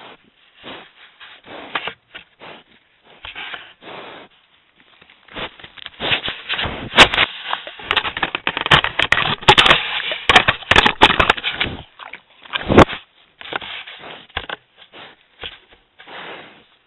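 Wild boar nosing at a trail camera, its snout and bristles scraping and rubbing against the housing right at the microphone: irregular scraping and crackling, heaviest in the middle, with a few sharp knocks.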